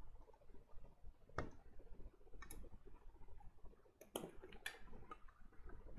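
Light, scattered clicks and taps from a PC power supply's circuit board and sheet-metal case being handled during reassembly, with a handful of separate clicks and a quick cluster of them near the end.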